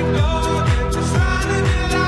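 Background pop music with a steady beat: a deep kick drum dropping in pitch about twice a second, under a sustained melody.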